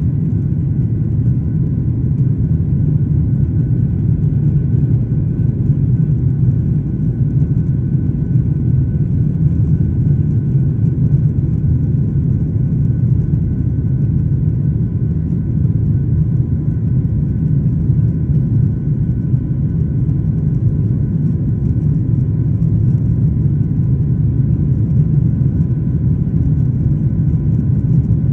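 Boeing 737-800's CFM56 jet engines running during takeoff: a steady, even low rumble with faint steady whine tones above it.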